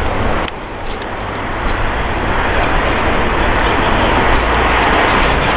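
Steady rushing rumble of a passing train in a railway yard. It dips briefly about half a second in, then swells steadily louder.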